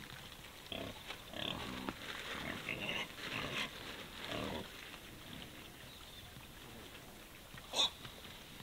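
Iberian pigs grunting softly on and off as they root at the ground. A single brief sharp click comes near the end.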